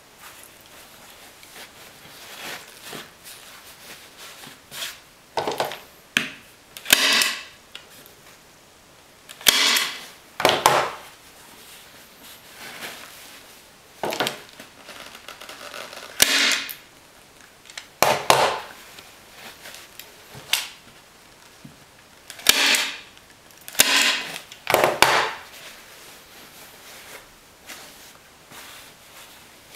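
Staple gun firing staples through upholstery fabric into a seat base, one sharp shot at a time, about ten shots a second or a few seconds apart, with faint fabric rustling between them.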